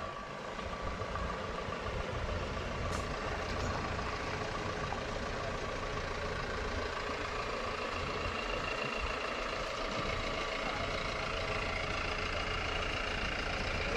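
Old fire truck's engine idling steadily at low speed.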